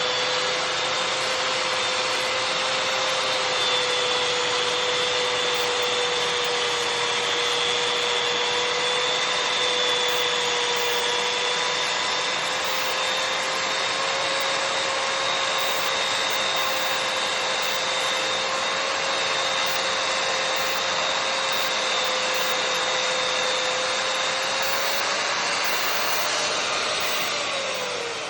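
Track saw cutting through 2-inch-thick black walnut: a steady motor whine over dense sawing noise. Near the end the pitch falls as the saw spins down.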